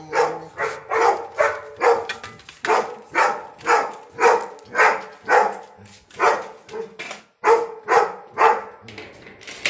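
A dog barking over and over at an even pace, about two barks a second, stopping shortly before the end.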